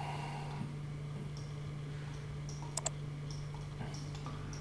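Computer mouse clicked twice in quick succession about three seconds in, over a steady low electrical hum and faint hiss.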